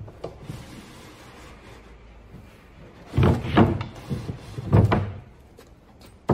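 Plywood cabinet back panel being pushed and knocked into place against the cabinet box: two short clusters of wooden knocks and bumps about three and a half and five seconds in, and a sharp knock at the very end.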